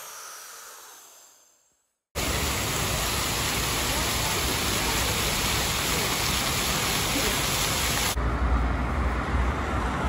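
A soft swell fades out, then water from the jets of a floor fountain hisses and splashes steadily. About eight seconds in it cuts to wind rumbling on the microphone, with street traffic.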